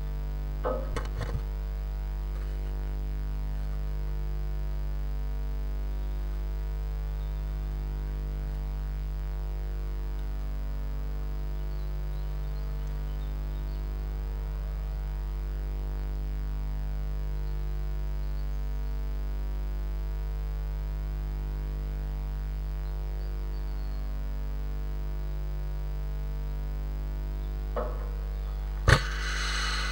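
Steady electrical mains hum in the nest-box camera's audio. A blue tit in the wooden box makes a few scratchy knocks, the loudest near the end, followed by a brief hissy rush.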